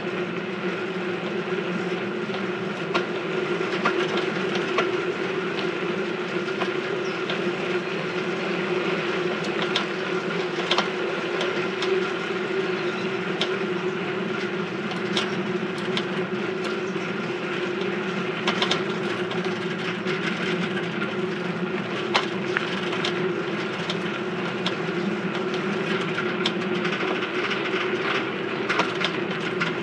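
A noisy bicycle being ridden: a steady droning hum from the moving bike with scattered clicks and rattles.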